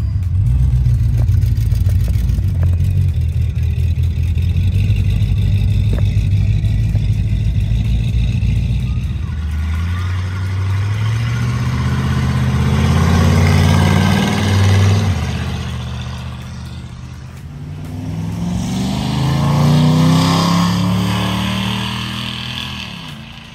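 Classic vehicles driving past one after another on a road: a 1950s Ford sedan and then a vintage pickup. Each engine note rises as it approaches and falls away as it passes. A steady low rumble comes before the first pass.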